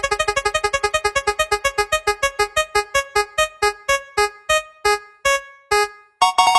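A synthesized keyboard sound effect: one note repeated quickly and slowing steadily, like a spinning wheel coming to a stop, until it halts about six seconds in, followed by a brighter held chord at the very end.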